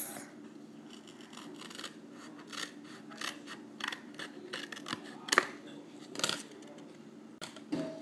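Scissors snipping through thin cereal-box cardboard, a run of irregular cuts with two louder snips around five and a half and six and a half seconds in.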